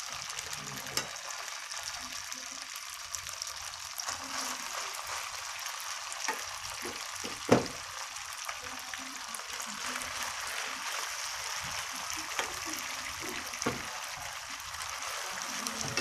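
Cooked glutinous rice sizzling in a hot, oily wok while metal spoons stir and scrape it, with a steady frying hiss and scattered clinks of spoon on pan, the loudest about halfway through.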